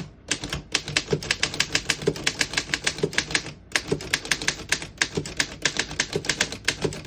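1916 Underwood No.4 manual typewriter being typed on at a quick pace: a fast, uneven run of sharp key strikes with a short pause about halfway through. The keys strike cleanly, none skipping or sticking.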